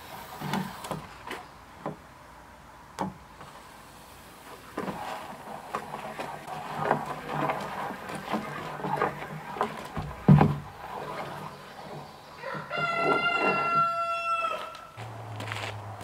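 A rooster crows once, a flat call about two seconds long, near the end. Before it come short clucking calls and light knocks and clicks, with one loud thump about ten seconds in.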